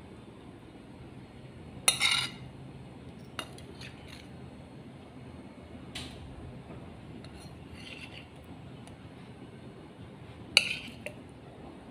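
Metal spoon clinking against a ceramic plate as soft dough rolls are pushed off it: a handful of sharp clinks with short rings, the loudest about two seconds in and again near the end.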